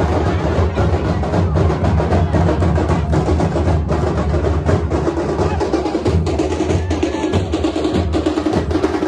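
Dhol and tasha drums played together in a fast, unbroken rhythm: deep dhol beats under rapid, sharp tasha strikes.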